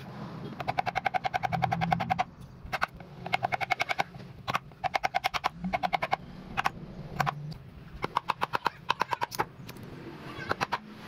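Woodworking chisel driven into a hardwood plank by quick hammer taps, in rapid runs of about ten strikes a second with short pauses between. Each strike rings with a metallic note.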